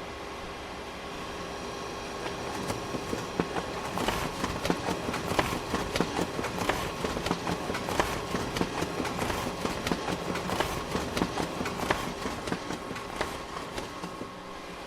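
Photocopier running: a steady motor hum with a few held tones. About two seconds in, rapid mechanical clicking and clacking joins it, then thins out near the end.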